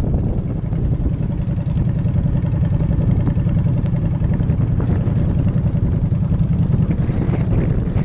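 Motorcycle engine running steadily while riding at low speed, with wind noise on the microphone.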